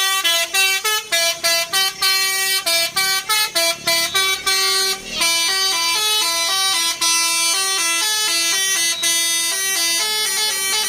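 Bus's multi-tone telolet air horn playing a melody: quick, choppy notes for about five seconds, then longer held notes.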